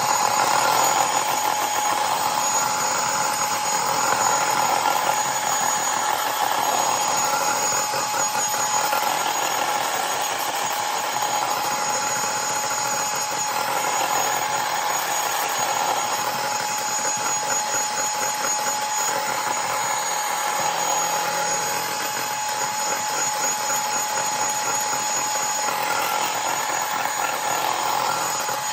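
Electric hand mixer running steadily, its beaters whipping coffee and a little water in a glass container until it turns thick and frothy like frosting. The motor gives a continuous, even whine.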